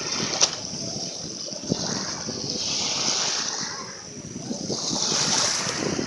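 Small Caspian Sea waves breaking and washing up a sandy beach close by: a rushing, fizzing surf that swells twice and eases off between the swells, with a sharp tick about half a second in.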